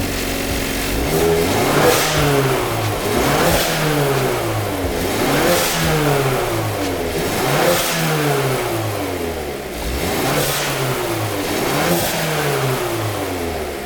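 Hyundai Veloster N's 2.0-litre turbocharged four-cylinder revved repeatedly, about six times, each rev rising and then falling away, with a short hiss from the TurboXS hybrid blow-off valve venting as the throttle closes at each peak.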